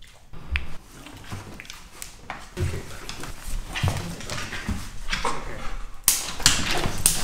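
A large American bully dog being handled, making breathing noises and short low grunts, with a louder burst of rustling noise about six seconds in.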